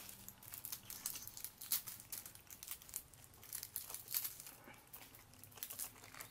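Small plastic instant-noodle seasoning sachets crinkling and being torn open by hand, in irregular bursts.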